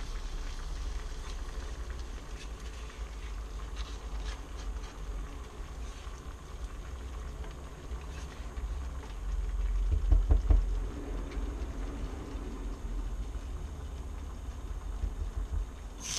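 Hot spiced-oil tadka sizzling faintly as it is scraped from a small frying pan onto cooked lentils in a pot, with light scrapes of a silicone spatula against the pan. It gets a little louder about ten seconds in, over a steady low hum.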